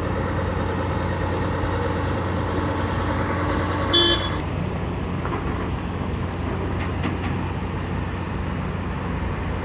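Steady low outdoor rumble, with one short vehicle horn toot about four seconds in.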